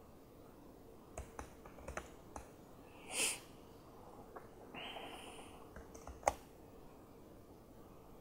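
Sparse keystrokes on a laptop keyboard as code is typed: a few separate clicks, the sharpest about six seconds in, over a faint steady hum. A short hissy burst comes about three seconds in.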